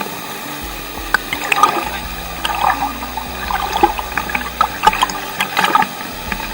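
People swimming in a waterfall pool, the water splashing and sloshing in irregular bursts.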